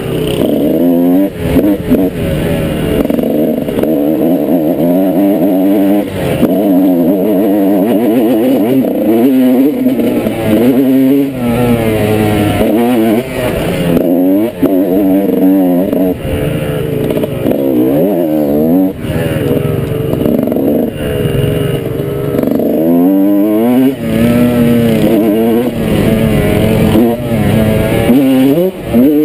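Motorcycle engine under way, its pitch rising and falling over and over as the throttle is worked and gears change.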